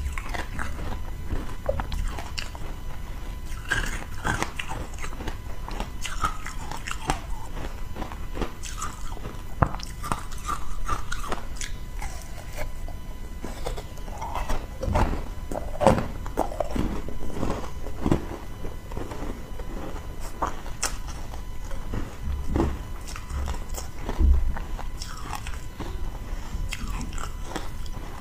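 Close-miked biting and chewing of a corn-cob-shaped block of frozen matcha tea: repeated crunching and cracking of ice, with the heaviest crunches a little past the middle and again near the end.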